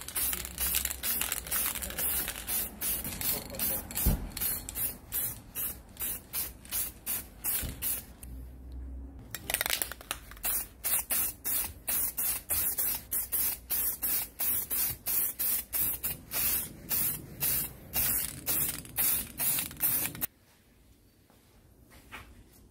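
Aerosol spray-paint can hissing in rapid short bursts, about three a second. The bursts pause for about a second some 9 s in and stop about 20 s in.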